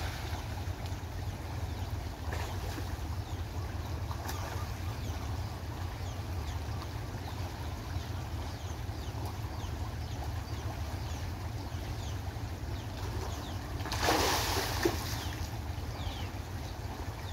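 Wind buffeting the microphone as a steady low rumble, with a short burst of splashing from catfish at the water surface near the end.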